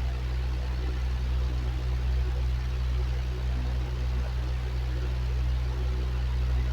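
Electric fan running steadily: a constant low motor hum under an even hiss of moving air.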